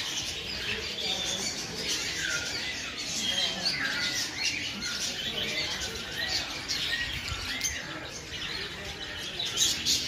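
A flock of small caged birds chirping and chattering all at once, a dense jumble of short up-and-down calls.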